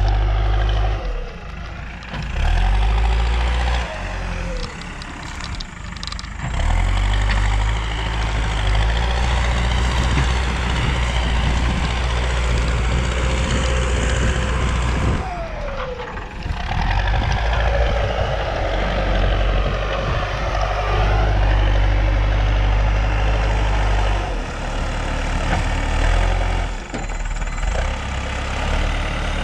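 JCB backhoe loader's diesel engine running as the machine works, its note rising and dropping with the load several times.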